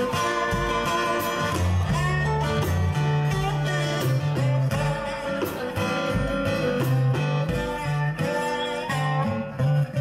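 Live acoustic blues instrumental: a resonator guitar picking a lead with some sliding notes over acoustic guitar rhythm and a light drum beat.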